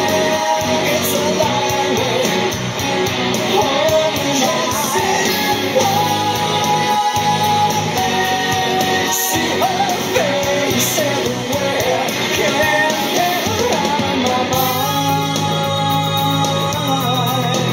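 Rock song with singing and electric guitar played loud through a Bluetooth speaker built into a .50 cal ammo can with two Kicker marine speakers.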